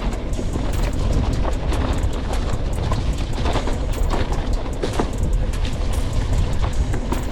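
Mountain bike rattling and clattering over a bumpy dirt trail: a constant run of knocks and clicks from the frame and parts jolting, over a steady low rumble of wind and tyres on the onboard camera's microphone.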